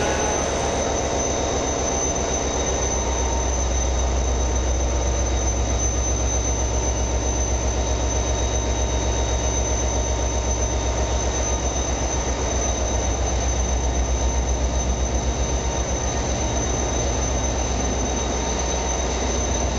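Train running along the rails: a steady low rumble that runs on without a break and swells slightly past the middle.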